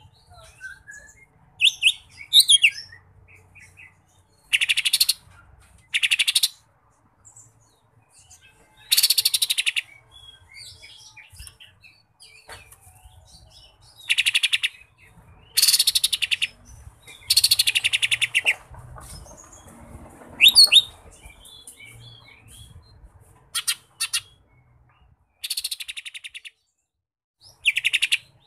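Caged green leafbird (cucak ijo mini) singing: loud bursts of rapid, stuttering trills and short whistled phrases, one every second or few seconds. Its song is filled in with mimicked sooty-headed bulbul (kapas tembak) phrases.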